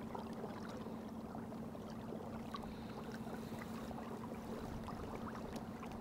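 Small boat under way on choppy water: a steady low hum with water lapping and many small ticks and splashes.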